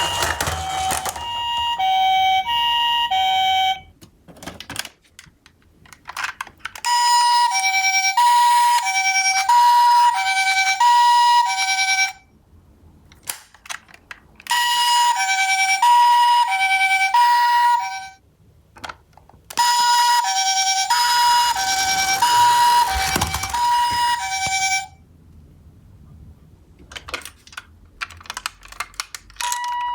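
Japanese-style ambulance two-tone siren, a 'pee-po' alternating between two pitches about once a second, sounding in four bursts of several seconds with short breaks. In the breaks and near the end there are only faint clicks and small knocks.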